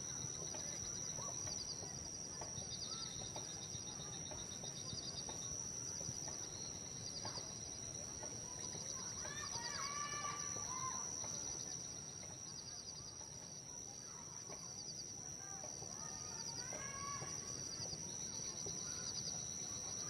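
Outdoor nature ambience of birds calling over a constant high-pitched insect-like hum and rows of fast repeated trills, with two louder bursts of bird calls about halfway through and again about three-quarters of the way through.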